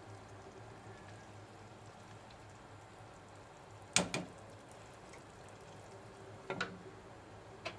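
Curry simmering in a pot over a steady low hum, with a spatula knocking sharply against the pot about halfway through, then a glass pot lid clinking twice as it is set on near the end.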